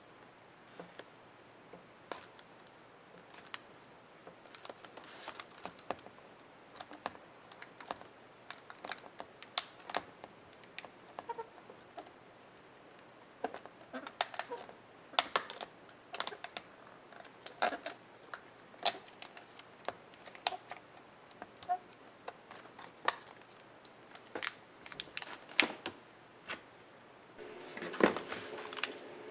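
Irregular plastic clicks, snaps and taps of laptop parts being pried and handled by hand during a disassembly, some sharper than others. Near the end a small power tool starts to run.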